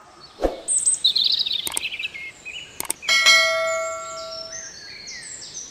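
Sound effects for a subscribe-button animation: a thump, a twittering chirp, two sharp clicks, then a bell ding that rings on and fades, with short rising tones near the end.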